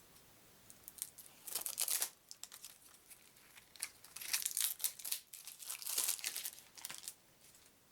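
Wrapping crinkling and tearing as a deck of cards is opened by hand, in three bursts of crackling.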